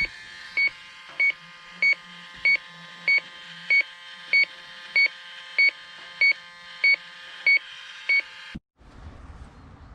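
Electronic refrigerant leak detector beeping at a slow, even rate, about three short beeps every two seconds, while it searches for a leak. The beeping cuts off about 8.5 seconds in, and a faint outdoor background follows.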